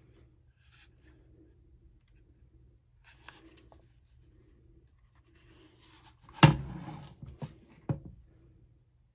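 Kydex holster with a pistol in it being handled: faint rubbing and scraping of the plastic, then a sharp knock about two-thirds of the way through and two more, smaller ones shortly after, as it is laid down on a table.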